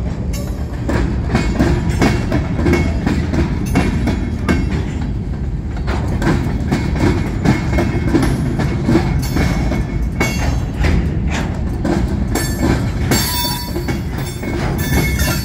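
Freight train of covered hopper cars rolling past at close range: a steady rumble of steel wheels on rail, with a rapid, irregular clatter of clicks as the trucks cross the intersecting rails.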